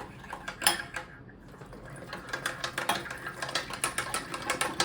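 Glue and shaving-foam slime mixture being stirred in a container: a run of small wet clicks, sparse at first and fast and dense from about two seconds in.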